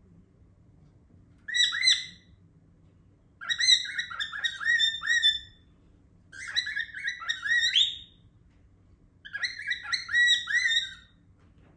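Cockatiel calling loudly in four bouts of quick, repeated chirping notes, each bout lasting one to two seconds with short pauses between.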